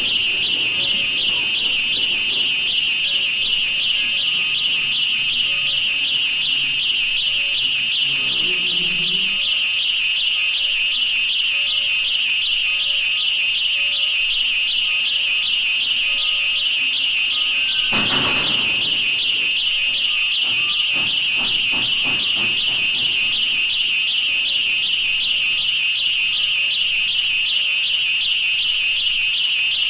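A continuous high-pitched warbling tone, like an alarm, holding steady throughout, with a short burst of noise about eighteen seconds in.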